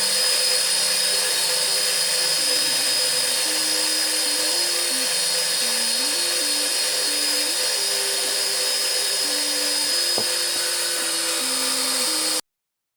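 Surface grinder running steadily as it grinds uneven needle roller thrust bearing races flat on its magnetic chuck: a continuous hiss with steady high whines. It cuts off abruptly near the end.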